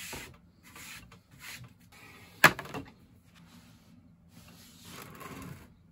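Plant pots being handled: short scraping and rustling sounds, with one sharp knock about two and a half seconds in as a pot bumps against a hard surface.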